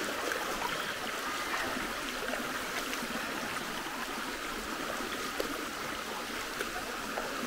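Shallow river running over pebbles and stones: a steady rushing hiss of water, with a few faint ticks.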